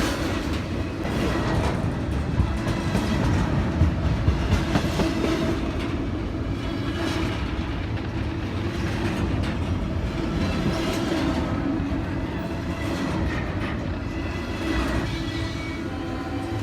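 A train rolling past: a steady, dense rumble of wheels on rail, with irregular clicks as the wheels cross rail joints.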